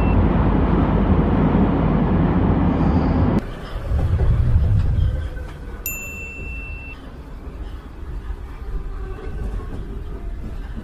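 Running noise inside a moving subway car: a loud, steady rumble cuts off suddenly about three and a half seconds in, a short low rumble follows, then quieter running noise. A bright ding sound effect rings once about six seconds in.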